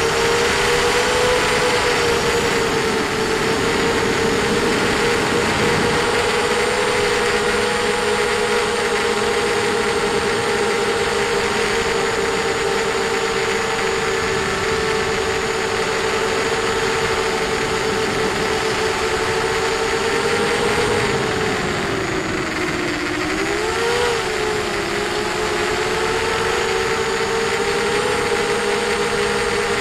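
ZMR250 FPV quadcopter's brushless motors and 5x4 props whining steadily in flight, heard from the onboard camera, over a rushing hiss. The pitch sags and then swings back up briefly about three-quarters of the way through as the throttle changes.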